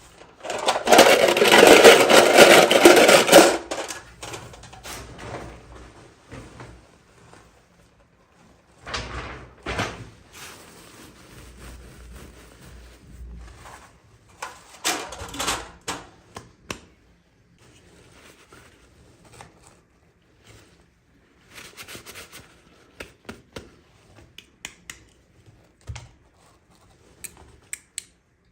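Toy packaging being handled and opened by hand: a loud burst of rustling in the first few seconds, then scattered softer rustles with small clicks and taps.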